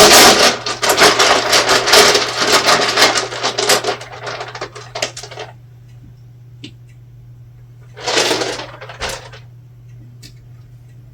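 Several dice shaken together in cupped hands: a loud, dense clicking rattle that fades out over the first five and a half seconds. A short clattering burst follows about eight seconds in, over a steady low hum.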